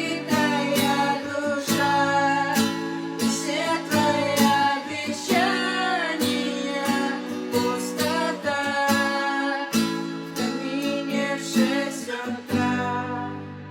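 Song with rhythmically strummed acoustic guitar and a singing voice. Near the end the strumming stops and a held chord fades away.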